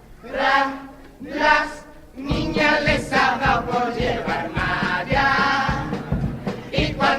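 Chirigota music: a group of voices in unison on a melody, two short phrases and then a continuous line, with a steady drum beat joining about two seconds in.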